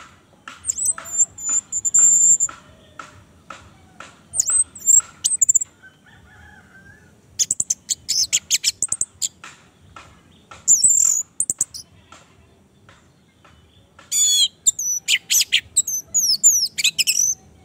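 Orange-headed thrush (anis merah) singing in varied phrases: runs of short quick notes mixed with high, gliding whistles. The song comes in three bursts with short pauses between them.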